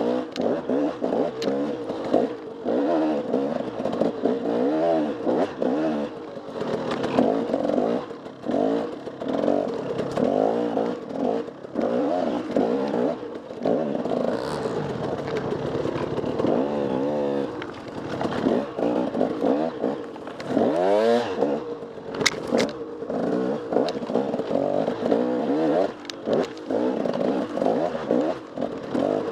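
Enduro dirt bike's engine being ridden hard, its revs rising and falling again and again with no steady stretch, with scattered sharp knocks and clatter.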